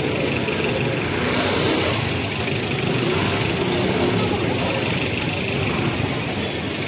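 Busy street ambience: a vehicle engine running steadily, with people's voices chattering around it.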